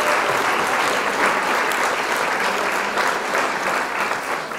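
Applause: many hands clapping in a dense, steady patter that begins to fade near the end.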